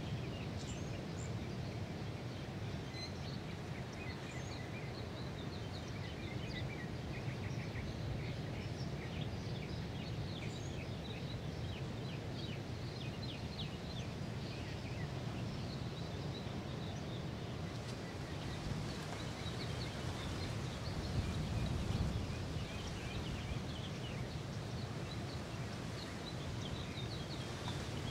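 Birds chirping in quick runs of short, high notes, coming and going over a steady low rush of surf.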